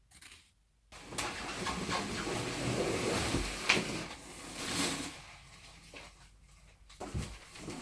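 Bubble wrap and packaging rustling and crinkling as a wrapped bike frame is handled in its box, with a couple of sharp knocks.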